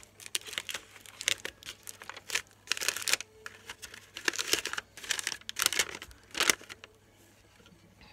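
Magazine paper crumpling and crinkling in the hands as a page is gathered and folded into a paper flower, in irregular bursts that stop a little over a second before the end.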